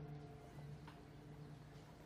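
Quiet, sad background music with held notes fading away, and a couple of faint clicks.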